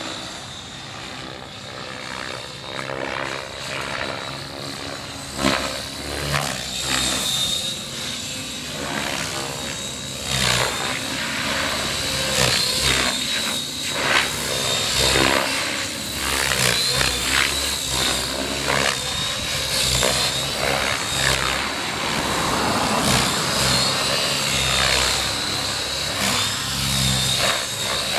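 Electric RC helicopter flying 3D aerobatics: a high motor whine over the whoosh of the rotor blades, swelling and fading as the helicopter moves and the blades load up through the manoeuvres.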